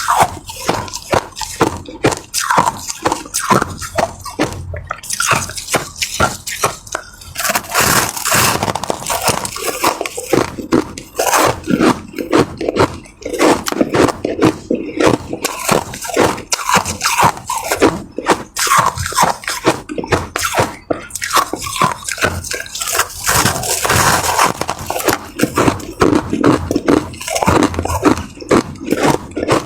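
Close-miked biting and chewing of ice: rapid, irregular crunches and crackles with wet, dripping sounds.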